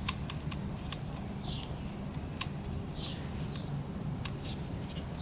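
A few faint scattered clicks and light taps from engine parts being handled, over a steady low hum.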